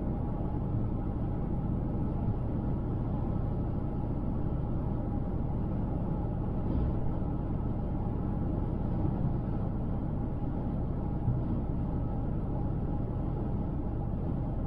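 Steady rumble of a car driving along a highway: tyre and engine noise at a constant cruising pace.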